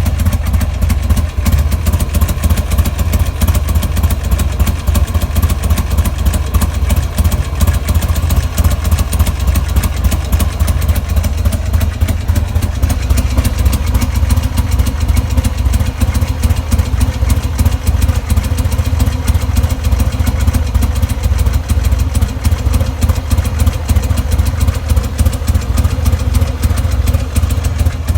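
Buell XB9SX motorcycle's air-cooled V-twin engine idling steadily, running with a strange noise that its owner is trying to identify.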